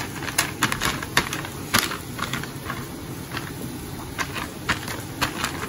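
Irregular crinkling and clicking of an oiled, silver-lined plastic milk packet as fingers press a ball of rice-flour dough flat on it.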